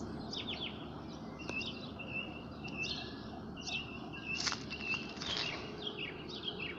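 Small songbirds chirping and twittering, with rapid short chirps and a repeated warbling note, over a steady low background rumble.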